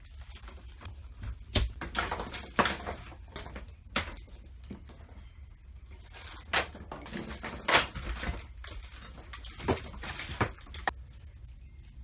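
Irregular knocks and clunks of tools and objects being handled and set down, over a low steady hum.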